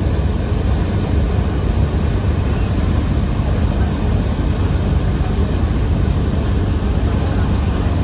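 Steady low rumble and rush of river passenger launches under way at speed: engine drone mixed with water churning along the hulls.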